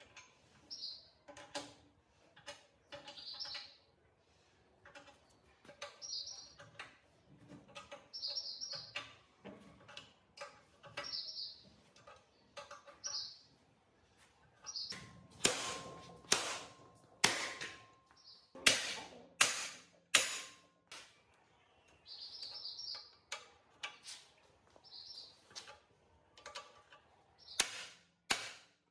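A series of sharp knocks and taps, the loudest a run of hard strikes about halfway through with a faint ringing tone under them. Short high chirps recur about every two seconds throughout.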